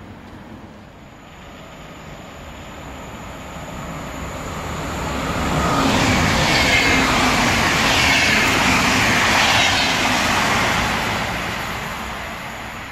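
An electric commuter train passing the platform: its rumble builds, is loudest for about four seconds in the middle, then fades as it moves away.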